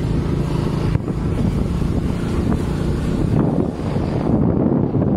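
Motorcycle engine running as the bike rides along a road, heard from the pillion seat, with wind rushing over the microphone. Its steady hum turns rougher about a second in.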